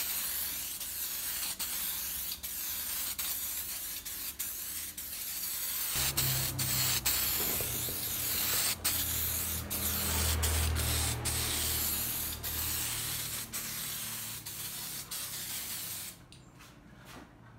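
Aerosol spray-paint can spraying: a steady hiss broken by many short pauses between passes. It stops about 16 seconds in.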